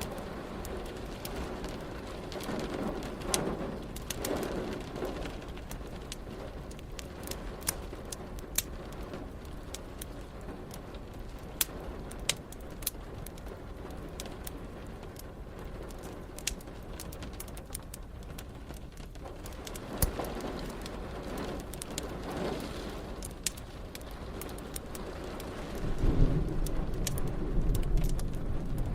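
Steady rain with a wood fire crackling over it in many sharp pops. A low thunder rumble swells up near the end.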